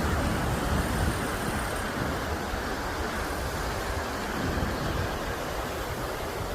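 Steady rushing noise of wind and tyres while riding a bicycle, with a heavy low rumble of wind on the microphone.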